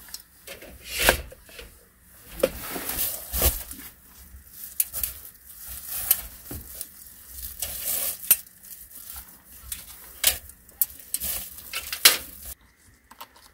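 A folding metal camp table with a mesh top being collapsed and packed away: repeated clicks, knocks and clattering with rustling in between, the loudest knocks about a second in and near the end.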